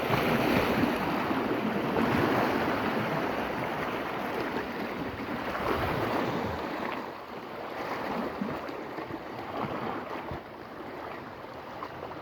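Sea surf washing against coastal rocks, with wind on the microphone; a steady rushing that is louder for the first half and eases off about seven seconds in.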